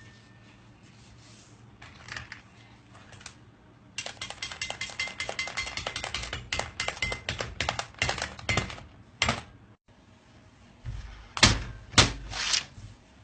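Knife chopping a hard-candy rope into pieces on a steel table: a quick run of sharp clicks lasting about five seconds. Near the end, a few heavy thuds.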